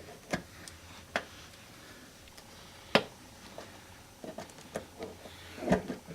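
Scattered light clicks and knocks, the loudest about three seconds in and several small ones near the end, from hands working molded car carpet down over a floor seat bolt.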